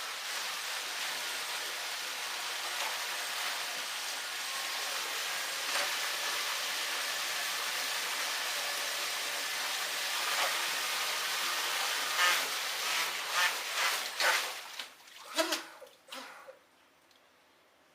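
Water rushing and splashing steadily, with a handful of sharp knocks and clatters near the end before it stops.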